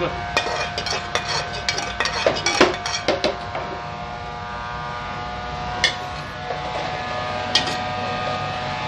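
A metal ladle scraping and knocking against the inside of a metal pan as thick sauce is scraped out, a quick run of scrapes and clicks over the first three seconds, then two single knocks later on. A steady hum with a few fixed tones runs underneath.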